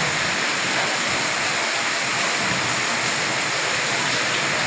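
Heavy rain pouring down in a steady downpour, a constant even hiss of water.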